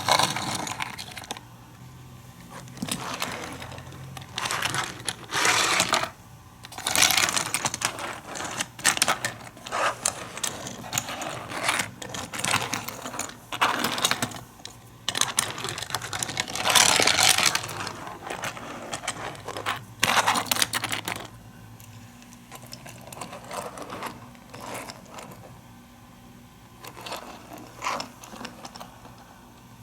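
Diecast toy cars rattling and clattering along plastic toy track in irregular runs of clicks. The runs are busier for the first two-thirds, then sparser and quieter after about 21 seconds.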